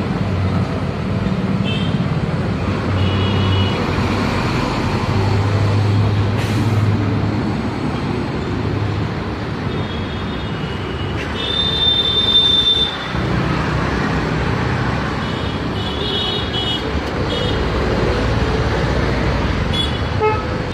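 Busy road traffic running steadily, with repeated short horn toots from passing vehicles; the longest and loudest toot sounds about halfway through. A single sharp click is heard about a third of the way in.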